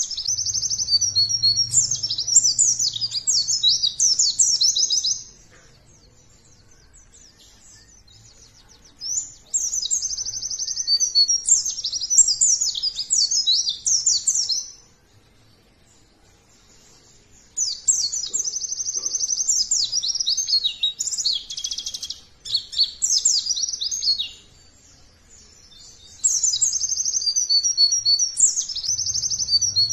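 White-eye (pleci) singing fast, high twittering song in four long phrases of about four to six seconds each, separated by pauses of a few seconds.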